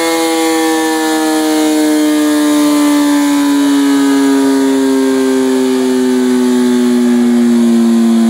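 Kawasaki ZX-10R's inline-four engine and rear wheel, spinning on a rolling-road dyno, winding down slowly with the throttle closed after a run. It makes one steady, siren-like tone that falls gradually and evenly in pitch throughout.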